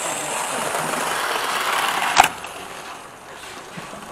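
Model railway side tank locomotive running along the track past the microphone, its motor and wheels growing louder until a sharp click about two seconds in, then fading away.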